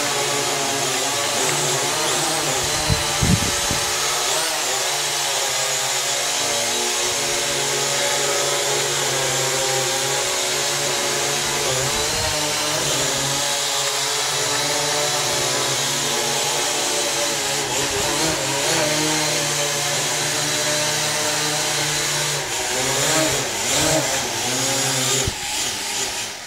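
ProMark VR quadcopter drone's motors and propellers running with a loud buzz, the pitch wavering up and down as the control sticks are worked, then cutting off near the end.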